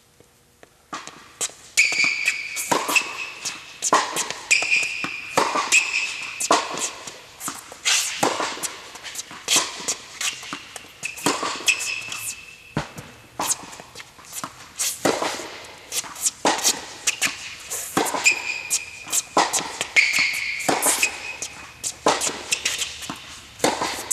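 Tennis ball rallied back and forth on an indoor hard court, starting about a second in: sharp racket hits and ball bounces that echo in the hall, with short, high squeaks of tennis shoes on the court between them.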